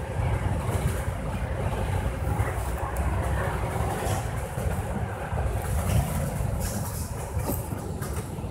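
Inside a MAN Lion's City double-deck bus under way: steady low rumble of the diesel engine and drivetrain, with tyre noise from the wet road and occasional faint ticks and rattles.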